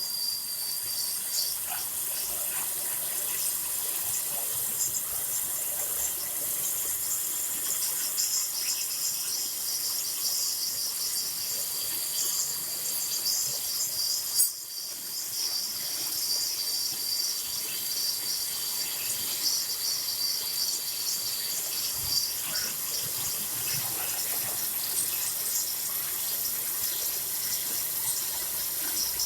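Metal lathe parting off a workpiece: a steady hissing wash with a thin high whine that comes and goes and fine crackling, and one sharp click about halfway through.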